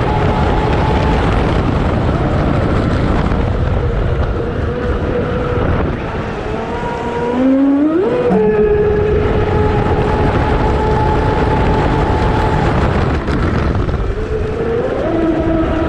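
High-pitched whine of a 10S brushless electric motor driving a Zelos 48 RC racing catamaran, heard from on board over a steady rush of water and wind. The whine holds steady, drops away as the boat slows about six seconds in, and glides sharply up as it accelerates near eight seconds. It climbs again near the end.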